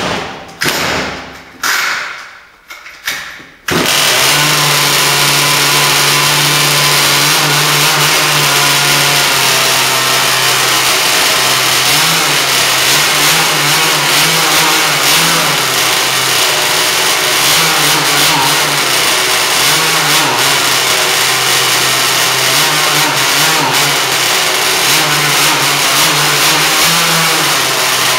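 CRRC GW26i 26cc water-cooled two-stroke gas engine of an RC boat on its first start: a few short cranking bursts, then it catches about four seconds in and runs steadily, with small rises in pitch from light throttle, never beyond a quarter throttle.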